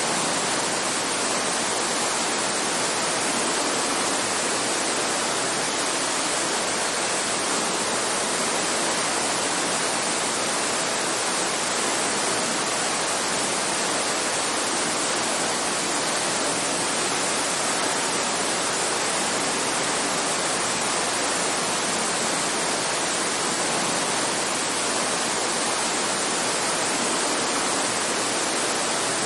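Steady rainfall, an even hiss with no separate drops or thunder standing out.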